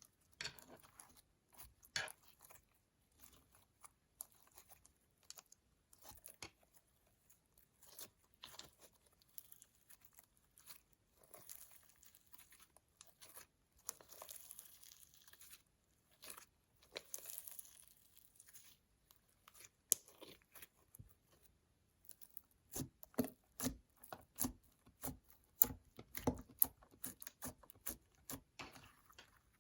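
Slime being worked by hand, giving scattered sticky clicks and crackles. The clicks come thicker and louder in the last several seconds.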